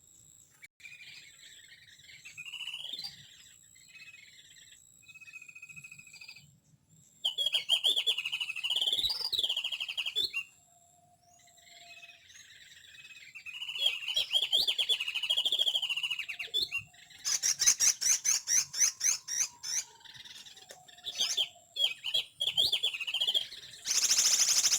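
Small songbirds chirping and twittering in repeated high warbling phrases with short pauses between them. There is a rapid buzzy chatter about two-thirds through, and a loud dense burst of calls near the end.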